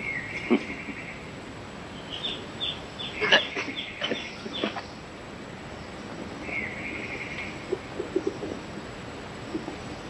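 Bird calls: a short trilled whistle at the start, a run of quick high chirps in the middle, then the trilled whistle again. A few faint low taps come near the end.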